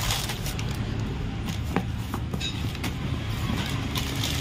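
Plastic packets of LED lights rustling and crinkling as they are handled, with a few sharp clicks, over a steady low rumble.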